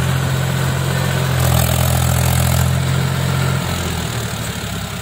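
Mahindra 265 DI tractor's three-cylinder diesel engine running steadily and hard under load, easing slightly near the end: the tractor is straining to pull a heavily loaded trolley and is bogged down in wet soil, its underside resting on the ground.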